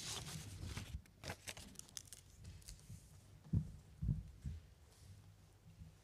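Footsteps and shuffling on a carpeted wooden platform, with paper rustling in the first second and two heavier thumps about three and a half and four seconds in.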